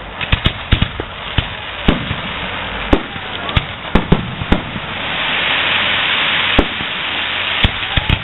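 Aerial firework shells bursting in quick succession: a dozen or so sharp bangs over the first four and a half seconds, then a louder stretch of steady noise, one strong bang, and two more bangs near the end.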